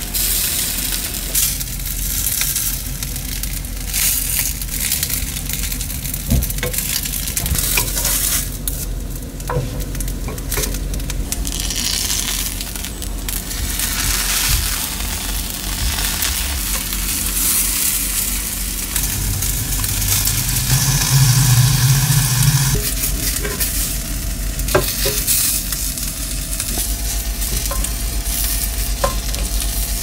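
Rice logs frying in a little oil on a cast-iron griddle pan: a steady sizzle, with a few light knocks as wooden spatulas turn them against the pan.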